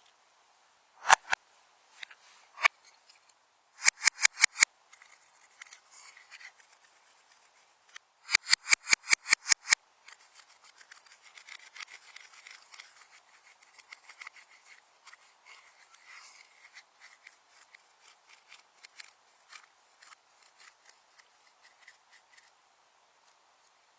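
Slime being worked by hand: a few loud sharp clicking pops, then two quick runs of clicks, followed by softer, quieter crackling that fades out near the end.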